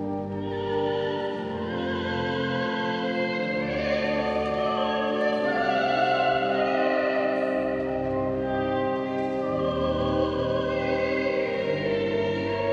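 Slow classical music with long held notes and an operatic-sounding solo line.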